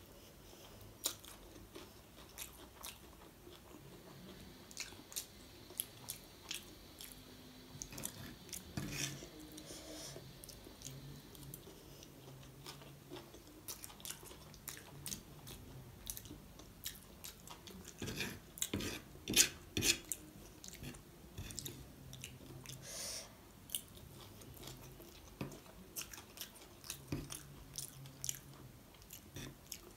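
Close-miked eating of Hakka noodles: chewing and wet mouth sounds with many sharp clicks, busiest about a third of the way in and again past the middle.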